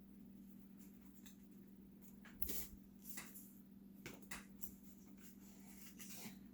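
Faint rustling and light tapping of paper and card as a cardstock explosion box and its photos are handled, the loudest rustle about two and a half seconds in, over a steady low hum.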